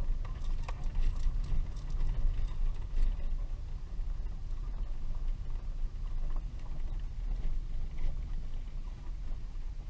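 A car driving on an unpaved track, heard from inside the cabin: a steady low rumble of engine and tyres, with small rattles and clicks mostly in the first three seconds.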